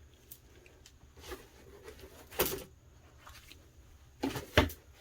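Objects being moved and set down on a tabletop: a knock about two and a half seconds in, then two more close together near the end, with light handling noise between.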